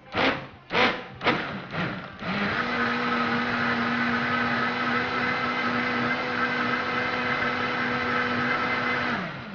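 Electric blender blending cut watermelon, pineapple and fresh mint for juice: about four short pulses in the first two seconds, then running steadily for about seven seconds with a steady motor hum, which drops in pitch as it winds down near the end.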